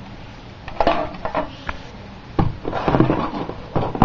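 A string of hard clicks and knocks, some close together and others a second or so apart, from a fire alarm strobe being handled.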